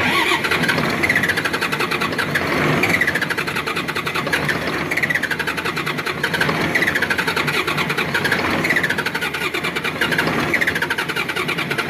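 Starter motor cranking an Isuzu 6BG1 six-cylinder diesel engine that does not fire: a steady, fast, even churning with a whine that dips in pitch about every two seconds. It is a no-start, which the mechanic puts down to a badly leaking hand primer pump not sending fuel to the injection pump.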